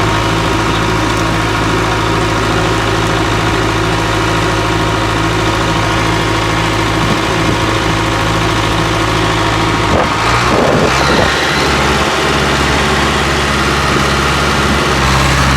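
Bulldozer's diesel engine running steadily at idle; its note changes about ten seconds in.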